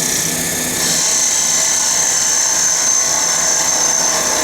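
Cue lathe running while a cutting tool faces off the end of a G-10 rod, a very hard fibreglass material. About a second in, a steady high-pitched cutting hiss starts over the motor hum and holds.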